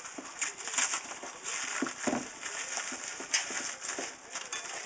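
Bubble wrap and plastic packaging crinkling as it is cut open with a knife and peeled off a packed part, in an irregular run of crackles and rustles.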